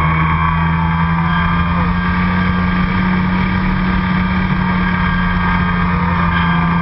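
RC airplane's motor and propeller droning steadily, heard from a camera on board the plane, the pitch wavering slightly as the plane manoeuvres.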